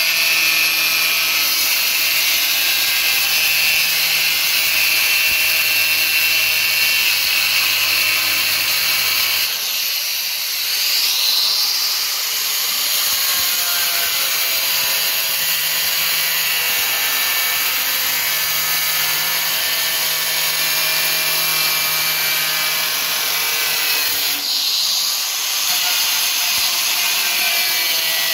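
Handheld angle grinder with a cutting disc slicing through mild steel sheet: a loud, continuous high-pitched grinding with the motor's steady whine beneath. The sound eases briefly about ten seconds in and again near the end.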